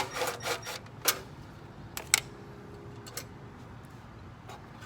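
Scattered clicks and light knocks of hand work inside an air-conditioner condenser unit as the run capacitor is pulled out: a quick cluster in the first second, then single clicks spread through the rest.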